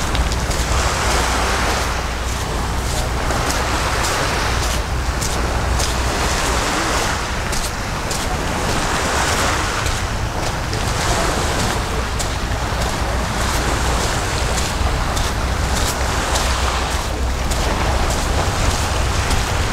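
Sea waves washing against the shore in repeated swells a few seconds apart, over a steady low rumble of wind on the microphone.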